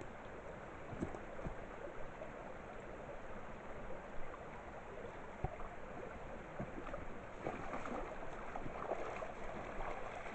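Water running steadily like a stream, a little louder in the second half, with a few faint scattered ticks or small splashes.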